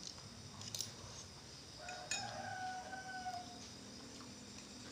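A rooster crowing once, faintly: a single long held call starting about two seconds in and lasting nearly two seconds, sagging slightly at the end. A metal spoon clinks a couple of times against a glass bowl.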